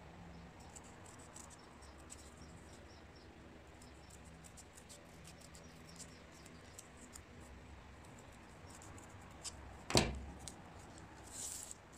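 Red-handled metal shears snipping thin white card: faint, irregular snipping clicks, then one louder clack about ten seconds in and a short rustle of paper near the end.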